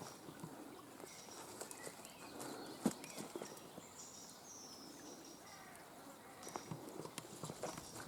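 Faint woodland ambience: brief high calls of small birds, with soft clicks and rustles and one sharper knock about three seconds in.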